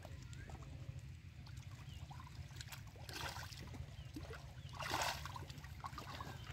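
Hands sloshing and splashing in shallow muddy water, with two louder splashes about three and five seconds in, the second the loudest.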